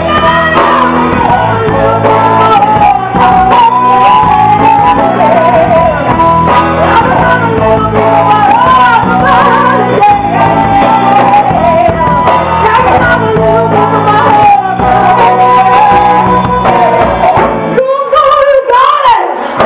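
Live band music with a woman singing, held notes that waver over guitar and a steady bass part. Near the end the low instruments drop out briefly and her voice rises on its own.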